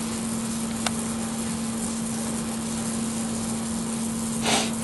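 Brazing torch flame hissing steadily against a copper tube, held in one spot so the tube overheats toward burning through. A faint click about a second in and a short, louder rush of hiss near the end.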